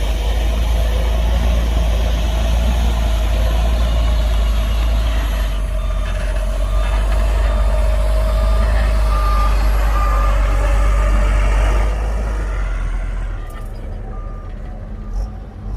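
Heavy diesel earthmoving machinery running hard with a deep steady rumble, easing off near the end. From about halfway through a reversing alarm beeps at a steady pace.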